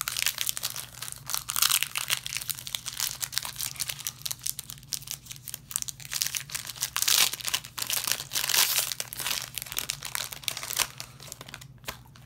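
Foil Yu-Gi-Oh booster pack wrapper crinkling and being torn open by hand, a dense crackle that dies away near the end.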